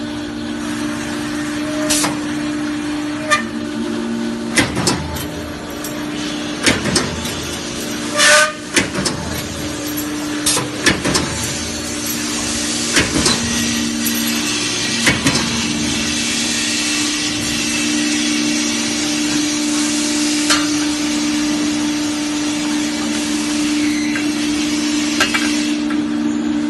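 CNC punching machine for ladder rails running: a steady motor hum under about a dozen sharp punch strokes, spaced irregularly and mostly in the first half, with hissing in the background.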